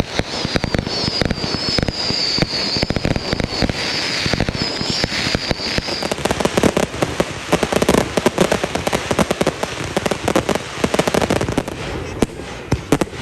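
Consumer fireworks going off in a dense, continuous stream of rapid bangs and crackling from multi-shot cakes and mortar shells. A high wavering whistle runs through the first half.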